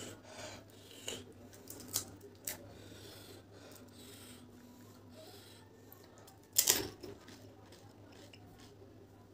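Crisp fried panipuri shells being cracked open with a fingertip: a few small sharp cracks in the first few seconds, then one louder crunch about six and a half seconds in.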